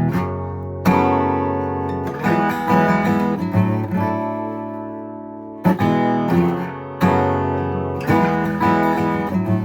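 Guitar in open E tuning strumming a chord shaped like an E with an extra note, a partial bar across the lower strings; about ten strums in small groups, each chord left ringing between them.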